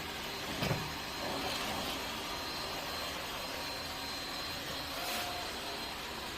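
Robot vacuum cleaner running, a steady whir of its suction motor and brushes with a faint high whine, and one short knock under a second in.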